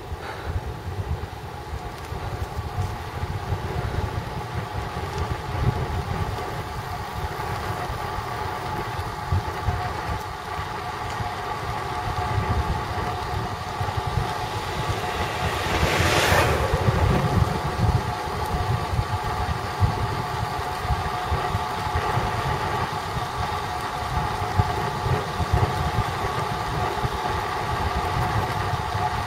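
Wind buffeting on the microphone and road rumble from a road bike descending a mountain road at speed, with a steady hum running underneath. About halfway through, a brief louder whoosh swells and fades.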